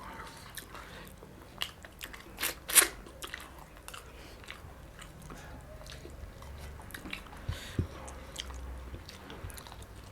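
A person chewing and biting food, with a few short crunches and clicks, the sharpest about two and a half seconds in.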